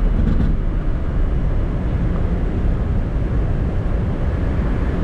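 Loud, steady low rumble of a Boeing 747-400 heard inside the cockpit, engine and airframe noise with the aircraft on the runway just after landing.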